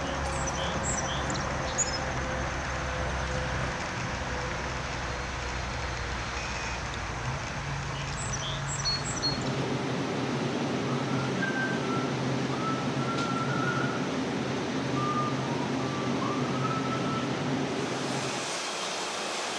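Steady location hum with a few short high chirps. About halfway through it gives way to the drone of brewery machinery, with wavering whining tones over it.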